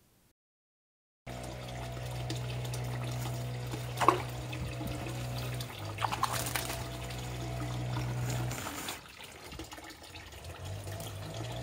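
After a second of silence, water splashing and trickling as a landing net is swept through the water and a perch is caught and lifted out, with sharp splashes about 4 s and 6 s in, over a steady low hum.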